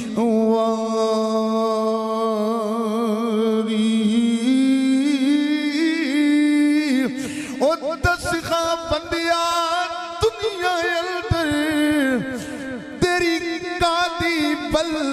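A man's solo voice chanting a devotional recitation in long, drawn-out melismatic notes. The notes waver heavily and glide between pitches, with short breaks between phrases.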